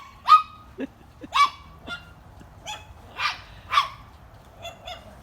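Dog barking in short, sharp, high-pitched yaps, about seven in five seconds, softer toward the end.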